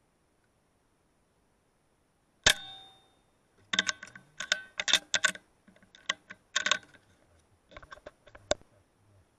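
A single loud, sharp shot from the hunting rifle about two and a half seconds in, with a brief ringing tail. It is followed by a few seconds of quick metallic clicks and clacks as the rifle and scope are handled and shaken.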